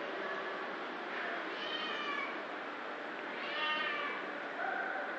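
Cat meowing, two high, arching calls about two seconds apart and a shorter, flatter one near the end.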